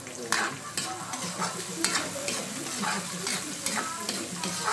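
Metal spatula scraping against a wok, about two strokes a second, stirring chopped onion, garlic and ginger as they sizzle in hot oil.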